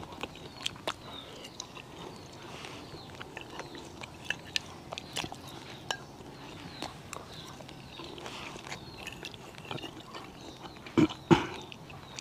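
A person eating close to the microphone: chewing, with scattered light clicks of a metal fork against a plate. Two louder short sounds come near the end.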